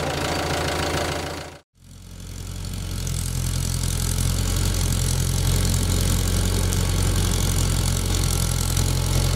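Mahindra Yuvo 575 DI tractor's 45 HP diesel engine running steadily at low revs. The sound drops out for a moment under two seconds in, then the engine fades back in and holds steady.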